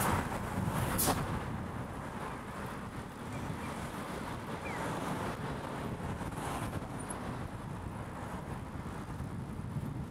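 Wind rumbling on the microphone of a cyclist's action camera while riding, with road traffic in the background. A sharp click comes about a second in.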